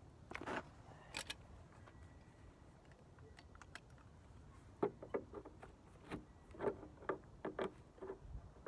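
Scattered light clinks and knocks of metal scrap parts being handled: a few near the start, then a run of them from about five seconds in.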